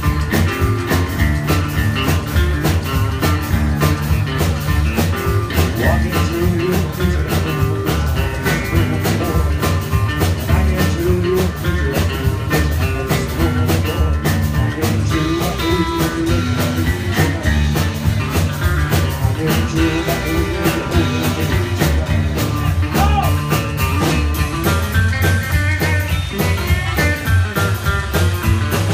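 Rock 'n' roll band playing live: guitar over bass and a steady drum beat.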